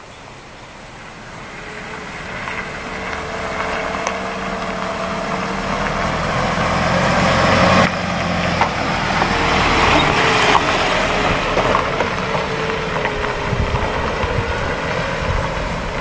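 A vehicle engine running as the vehicle drives along an unpaved forest road, with road and tyre noise. The sound grows louder over the first several seconds, and a wavering whine runs through much of it.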